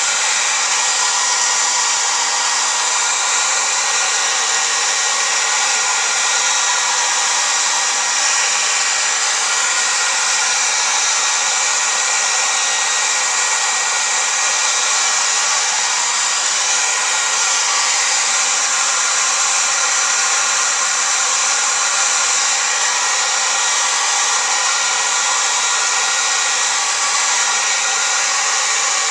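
Revlon 1600 hair dryer running steadily: a constant rush of air with a faint high motor whine, blowing hot air on the receiver to warm its failing capacitors.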